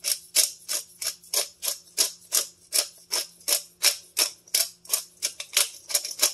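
Spice shaker of ground seasoning shaken hard in quick repeated strokes, each a sharp gritty rattle, about three a second.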